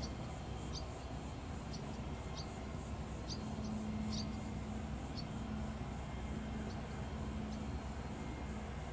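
Steady outdoor background rumble with a faint low hum, dotted with short high chirps about once a second.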